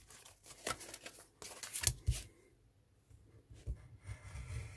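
Craft knife blade scraping through thick patterned card on a cutting mat, pressed hard in short strokes on a second pass round the cut, with a pause about halfway and the loudest stroke about two seconds in.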